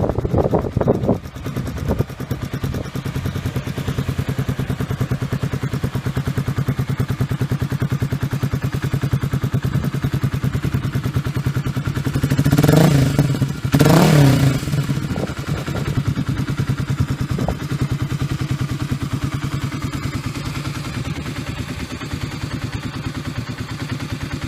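Exhaust of a 2001 Kawasaki KLX250's single-cylinder four-stroke engine through a White Bros E-series megaphone muffler, idling steadily. There are a couple of quick throttle blips in the first second and two short revs about halfway through, after which it settles back to idle.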